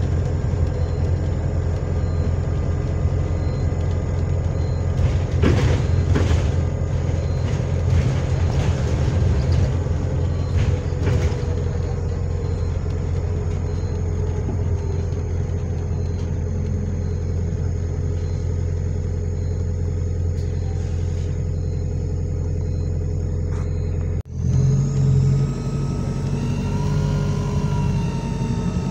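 Bus engine running, heard from inside the bus: a steady low hum with several steady tones, with a run of rattles and clicks from about five to eleven seconds in. About 24 seconds in the sound cuts out for a moment and comes back with a changed note, then a higher tone that rises and falls.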